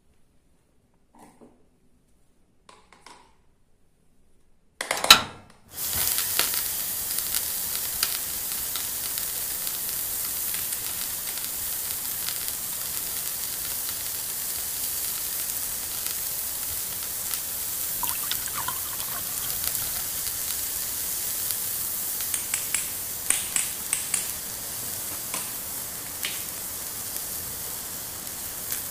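Sizzling frying sound that starts with a loud burst about five seconds in and then hisses steadily. Light clicks of plastic toy pieces are heard before it and a few times near the end.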